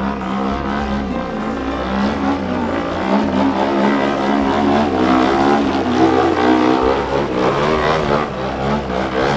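Yak-55M aerobatic plane's nine-cylinder radial engine running through aerobatic manoeuvres, its pitch wavering up and down, mixed with background music.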